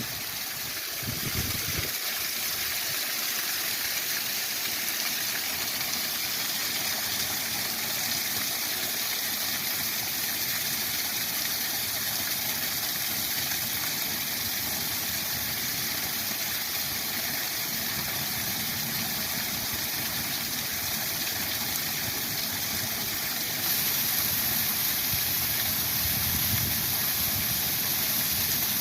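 Waterfall rushing steadily with an even, full hiss of falling water; it grows a little louder and brighter about three-quarters of the way through.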